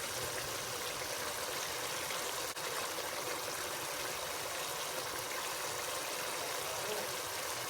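Chicken and pea curry sizzling steadily in the pan on a full flame as its last water cooks off.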